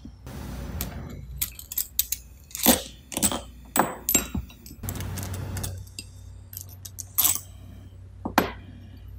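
Steel bolts and small metal parts clinking and clicking as they are handled and set down on a workbench, a string of sharp, irregular knocks. A low steady hum comes in about halfway through.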